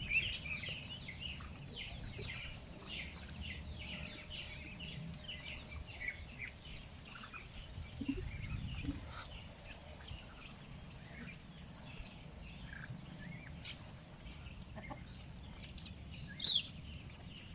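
A flock of Muscovy ducks feeding, giving a steady scatter of short, high, falling chirps and peeps. The chirps are thickest in the first few seconds and again near the end, over a low background rumble.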